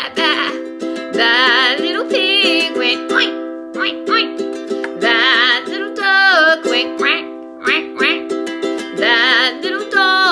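A woman singing a folk song in wavering held notes over steadily strummed ukulele chords.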